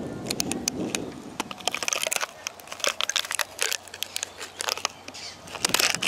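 Close, irregular crackling and snapping of dry plant material: scattered sharp cracks at first, thickening into dense crackly clusters, with the loudest burst near the end.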